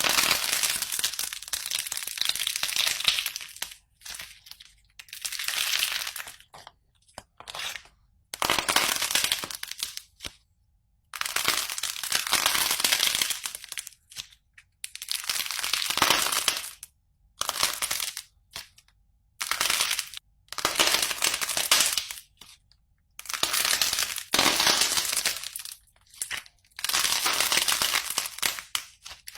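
Slime being squeezed and pressed, crackling and crunching in bursts of one to three seconds with short silent gaps between them.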